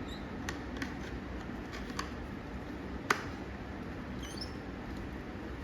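Light clicks and taps of helmet plastic parts being handled during visor fitting, with one sharper click about three seconds in and a few brief high squeaks near the end.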